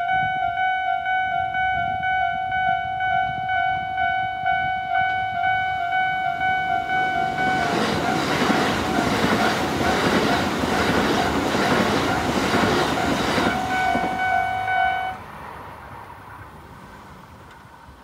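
Tobu Railway level-crossing warning bells ringing in the standard Tobu tone, with one bell higher-pitched than the other. A train passes through the crossing with a loud rumble and wheel clatter from about seven seconds in to about fourteen seconds. The bells stop about a second after the train has gone.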